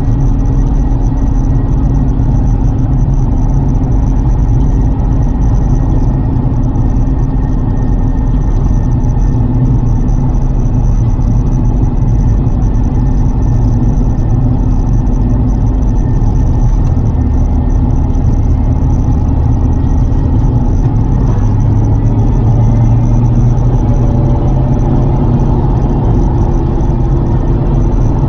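Lotus Carlton's twin-turbocharged 3.6-litre straight-six running steadily as the car drives, with a constant low rumble of engine and road noise; the engine note shifts slightly about three-quarters of the way through.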